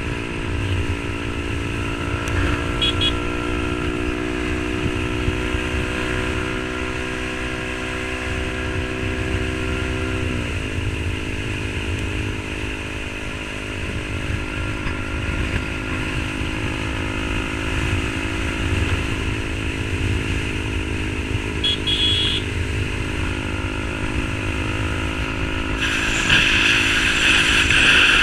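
Yamaha R15 V3 motorcycle with an aftermarket SC Project exhaust, its 155 cc single-cylinder engine running steadily under way. About ten seconds in the engine note drops suddenly to a lower pitch and holds there, and near the end the sound grows louder with more hiss.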